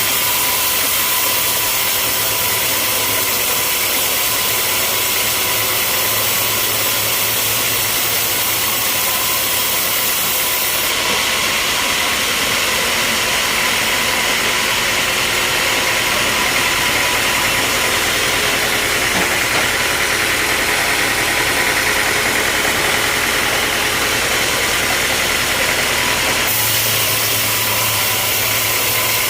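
Sawmill machinery running with a steady mechanical noise, its tone shifting abruptly about a third of the way in and again near the end.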